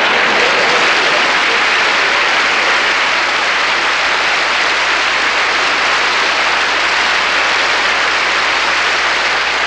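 Studio audience applauding, a dense, steady clapping that eases off a little near the end.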